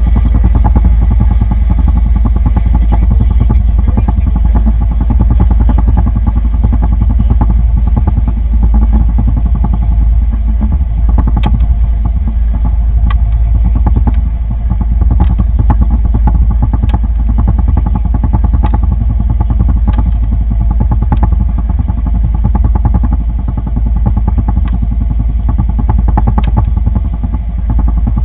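Boat motor running steadily with a loud low drone, with a few sharp clicks or knocks scattered through it.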